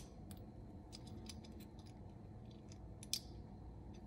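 Light metal clicks and taps from a lever-action hole-punch pliers as a 1.5 mm punch tip is fitted and seated in it, with one sharper click about three seconds in.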